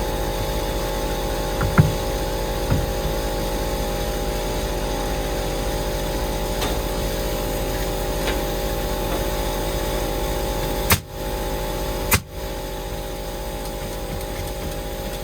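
An engine running steadily with an even, unchanging hum. A few light knocks sound about two seconds in, and two sharp clicks come close together near the end.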